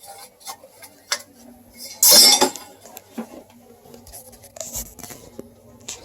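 Metal clinks and knocks of sheet metal and tools being handled while an evaporator coil is worked out of its furnace cabinet, with one louder scraping rush about two seconds in.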